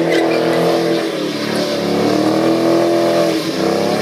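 Ford Mustang's engine held at high revs while the car spins donuts on wheelspin, the rear tyres burning out in smoke. The revs stay high and steady, dipping briefly about three and a half seconds in before climbing again.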